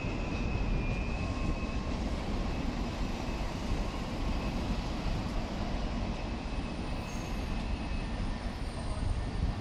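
Freight train of intermodal container wagons rolling past: a steady rumble of wheels on rail, with a thin high tone that fades out after about two seconds.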